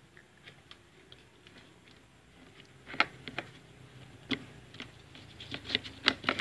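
Hands handling a washing machine's plastic door-lock switch and its wiring: scattered light clicks and taps, a sharper click about three seconds in and a cluster of clicks near the end.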